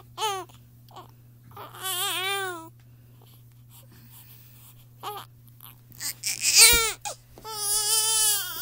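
Newborn baby crying in four separate wails with pauses between them: a short one at the start, a longer one about two seconds in, and two more near the end, the first of those the loudest.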